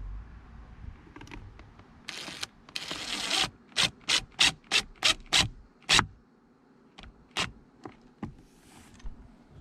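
Hand work fitting a speaker into a boat panel. Two longer scrapes, then a run of short rubbing strokes about three a second, then a few sharp clicks near the end.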